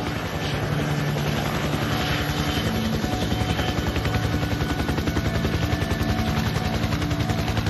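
Helicopter rotor chopping at a fast, even beat, with a steady engine hum under it.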